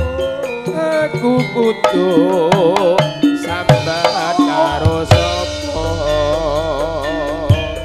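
Javanese gamelan music. A singer holds notes with a wide vibrato over hand-drum strokes and struck metal notes, and a deep low hum sets in about five seconds in.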